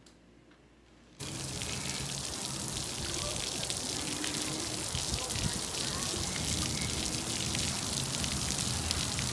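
Splash-pad ground fountain jet spraying water and pattering on wet concrete: a steady hiss that starts suddenly about a second in. Faint voices sound in the background.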